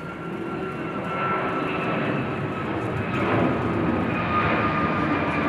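Airbus A321XLR twin turbofan jet airliner flying overhead at climb power, its engine noise growing louder, with a high whine that slides slightly lower.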